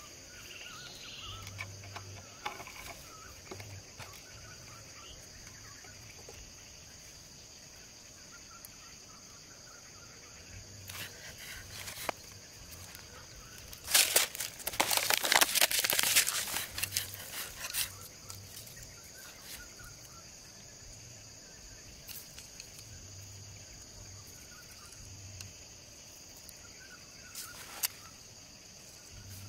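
Steady high-pitched insect chorus, with a few seconds of dense crackling and crinkling about halfway through as a small plastic bottle is handled.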